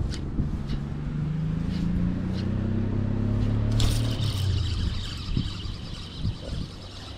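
Spinning reel being cranked to bring in a hooked fish. Under it runs a low drone that rises slowly in pitch and fades after about four seconds, when a higher whirring sets in.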